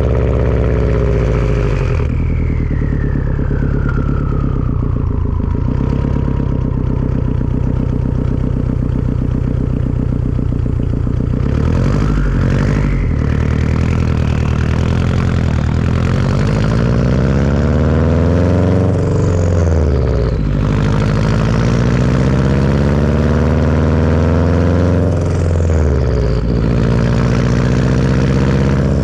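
Turbocharged Subaru flat-four breathing through a Tomei turbo-back exhaust, the engine note climbing and dropping back several times as the car is driven on and off the throttle. Over it the turbo whistles: a whistle falling away after the throttle is lifted about two seconds in, then whistles rising again as the turbo spools near the middle and later on.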